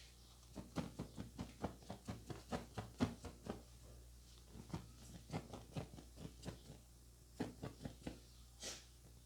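Hands striking the head in quick rhythmic massage blows, about five a second in three runs with short pauses between. Near the end comes a brief rasp.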